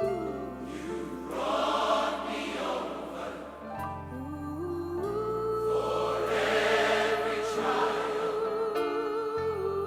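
Choir singing a gospel worship song, with long held notes carrying vibrato over low accompaniment notes that change every second or two.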